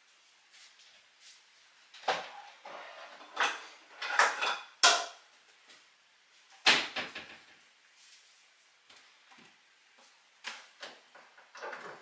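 A series of sudden knocks and clunks, about eight in irregular clusters, the loudest around the middle, like objects being handled and set down or a door or cupboard closing.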